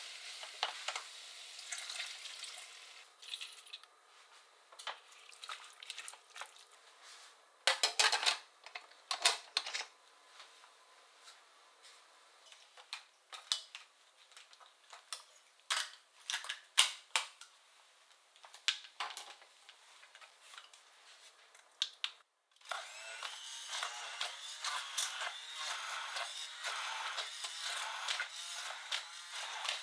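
Onions and potatoes sizzling in butter in a stainless pot as they are stirred, then a series of clicks and clattering knocks as a Braun immersion blender is put together on the counter. A little after two-thirds of the way in, the hand blender starts and runs steadily, puréeing the cooked potatoes in the pot.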